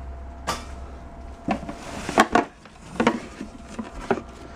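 Silver-plated ware and other hard household items being lifted out of a cardboard box and set down: a string of separate knocks and clinks, about one a second.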